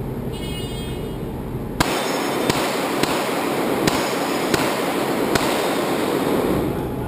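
A shot timer beeps once, then about six handgun shots fire in quick succession, roughly half a second to a second apart.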